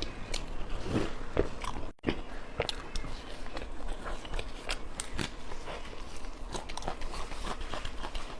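Close-up chewing and biting of a stuffed steamed bun (baozi), a run of irregular wet mouth clicks and smacks, broken by a brief cut-out about two seconds in.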